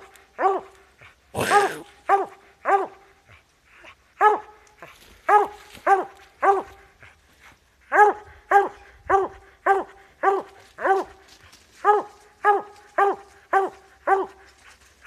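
A dog barking treed at a den tree: steady, evenly spaced chop barks, about two a second, with a short pause a few seconds in. About a second and a half in there is one brief harsh noise.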